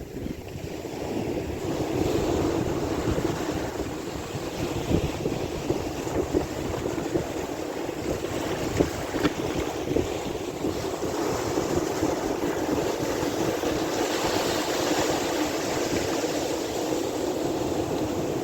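Sea waves washing steadily with wind buffeting the microphone, broken by a few short splashes or knocks about five and nine seconds in.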